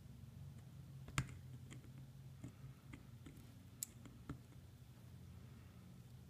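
Faint sharp clicks and taps of small metal parts being handled: a PL-259 connector and soldering iron tip at a bench vise. They sound over a low steady hum. The sharpest click comes about a second in, with two more a little before and after four seconds.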